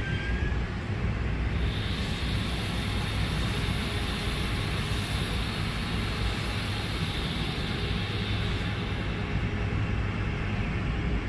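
Amtrak Cascades Talgo 8 trainset's articulated coaches rolling past close by on departure: a steady rumble of wheels on rail, with a hiss that comes in about two seconds in and fades near nine seconds.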